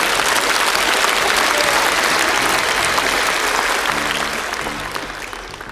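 Studio audience applauding and laughing, the clapping thinning out toward the end as a low music line comes up underneath.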